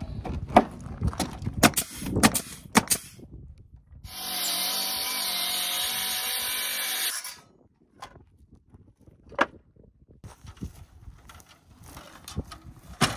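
Circular saw cutting through a wooden board for about three seconds, stopping abruptly. Before it comes a run of sharp knocks, and a few scattered knocks follow.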